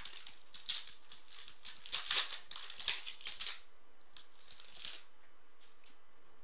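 Foil trading-card pack wrapper crinkling and tearing as it is opened by hand: a run of crackly rustles over the first three and a half seconds, a few fainter ones after, then it stops.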